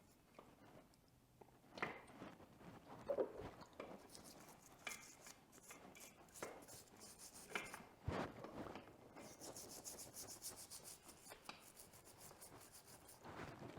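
Faint scrubbing of a stiff brush on the dirt bike's rear brake caliper parts, in spells of quick rhythmic strokes, with a few light clicks and knocks as the parts are handled.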